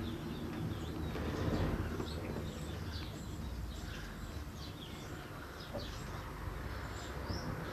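Small birds chirping in short, scattered high calls over a steady low rumble of outdoor background noise.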